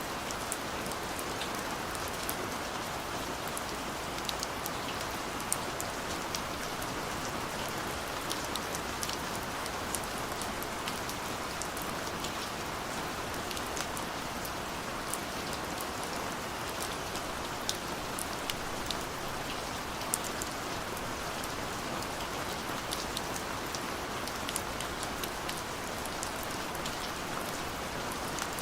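Steady light rain falling, an even hiss with many small drops ticking sharply on a surface.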